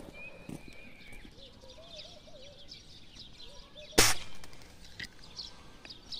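A single rifle shot about four seconds in, a sharp crack with a brief ring-out. Birds chirp faintly around it.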